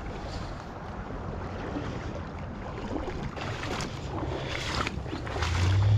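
Boots wading through a shallow, gravel-bottomed creek, water swishing and splashing around them with each step.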